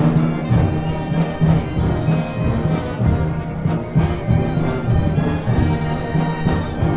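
A band of brass and drums playing music with a steady beat.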